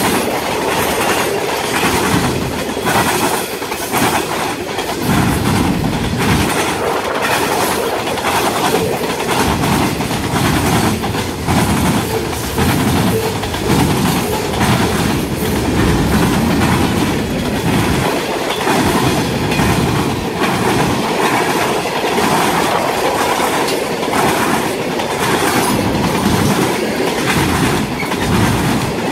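Freight cars of a passing CSX mixed freight train rolling by close at hand: a steady loud rumble of steel wheels on rail, with a continuous run of clacks as the trucks cross rail joints.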